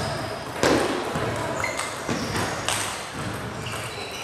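Table tennis rally: the ball struck by the bats and bouncing on the table, a run of sharp clicks about half a second apart, the loudest under a second in, over the background clatter of a large hall.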